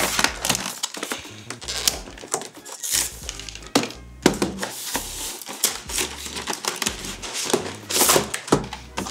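Cardboard collector's box being pulled open and its plastic tray slid out: irregular clicks, scrapes and crinkles of cardboard and plastic packaging, over background music.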